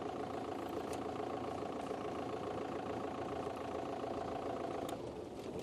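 Safari game-drive vehicle's engine running steadily, then stopping about five seconds in.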